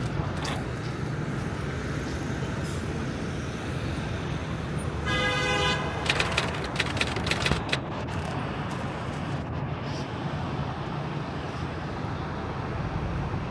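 Steady outdoor city background noise. About five seconds in, a horn toots once, briefly, followed by a short scatter of clicks.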